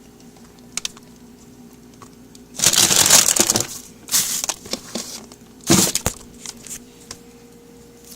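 Plastic food packaging rustling and crinkling as it is handled, in three short bursts with a few light clicks between them, over a faint steady low hum.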